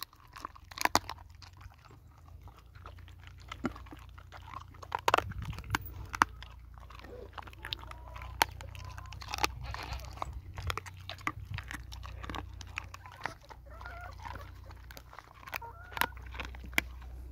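Kangal dog gnawing a raw animal leg bone: irregular wet crunches and sharp cracks of teeth on bone and gristle.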